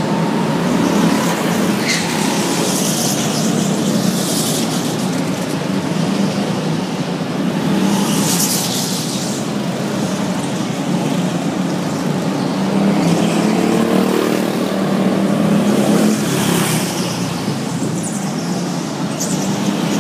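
Go-kart engines running laps of an indoor track: a steady drone, with karts passing close and louder every few seconds, inside a large hall.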